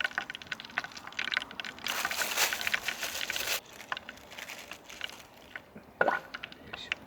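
Hot oil sizzling and crackling as small horse mackerel fry for tempura, with a loud burst of hissing lasting about a second and a half a couple of seconds in.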